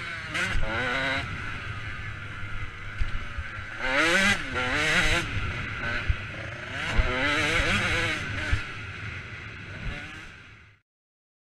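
Motocross dirt bike engine revving up and falling back repeatedly while riding the track, with the revs climbing hard near the start, about four seconds in and again around eight seconds. The sound fades out near the end.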